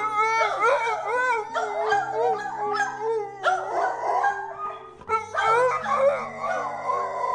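A dog howling in long, wavering calls, with a short break about five seconds in, over background music.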